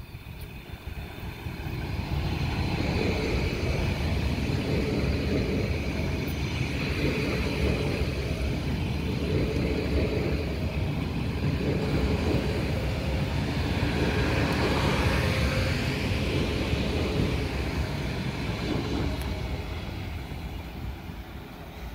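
ICE T (DB Class 411) electric multiple unit passing close by at speed: the rumble of its wheels on the rails builds over the first couple of seconds, holds steady with a repeating clatter as the cars go by, and fades near the end as it moves away.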